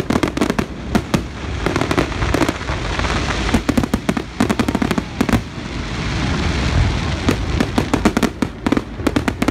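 Zambelli aerial fireworks display: a rapid, overlapping barrage of shell bursts and bangs, with a crackling hiss between them around the middle.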